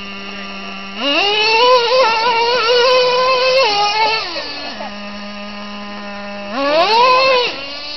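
Traxxas Revo 3.3 nitro RC truck's small two-stroke nitro engine idling with a steady high buzz, then revving up about a second in and holding high, wavering with the throttle, for some three seconds before dropping back to idle. A second short rev comes near the end.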